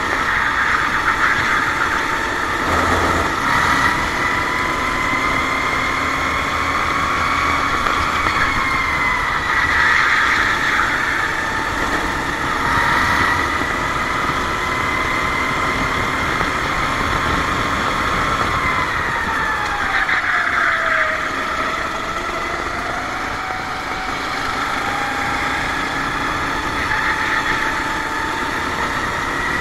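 Go-kart engine running hard. Its pitch climbs slowly and falls several times as the kart speeds up and slows, with the deepest drop about twenty seconds in.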